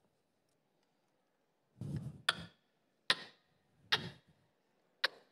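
A series of sharp clicks, five of them, spaced about a second apart, beginning about two seconds in, the first two close together.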